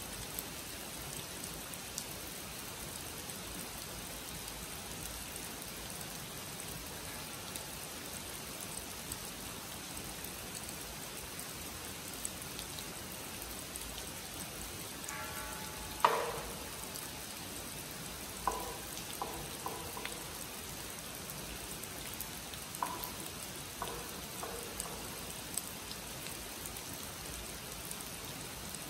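Steady rain falling on a pond and leaves. About halfway through, a wooden clapper is struck: one loud, sharp strike, then runs of lighter, quicker strikes. This is the signal calling the monks to zazen.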